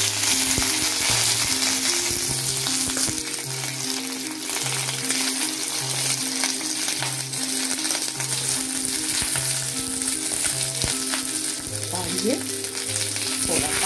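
Curry leaves and slit green chillies sizzling in hot oil with mustard seeds in a kadhai, making a tempering. A wooden spatula stirs and scrapes through it, adding scattered clicks.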